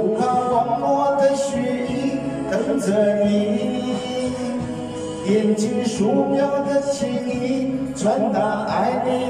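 A man sings a Mandarin pop ballad into a handheld microphone over a backing track.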